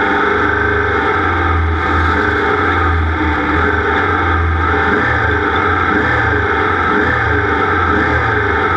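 Race vehicle engine running at a steady speed.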